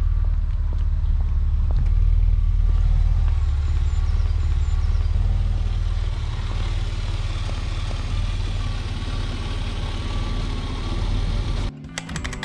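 Car engine running steadily with a deep, even note. Music cuts in suddenly near the end.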